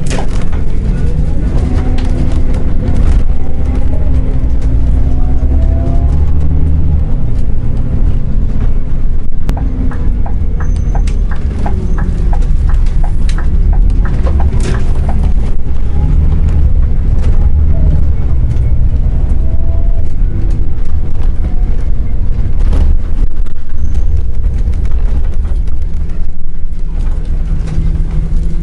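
Scania Omniexpress coach's diesel engine and road noise heard from the driver's cab: a steady low running sound with a whine that rises and falls as the bus drives and turns. A run of clicks and rattles comes about halfway through.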